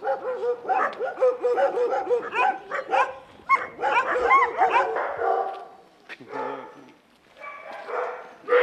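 Many shelter dogs in their kennel runs barking and yipping together, a rapid overlapping chorus of short calls that thins out after about five seconds.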